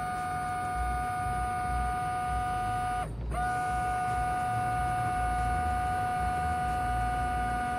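Electric windscreen washer pump on an Audi A6 allroad whining steadily as it is run to test the new install. The whine cuts out about three seconds in and rises back to pitch as the pump starts again.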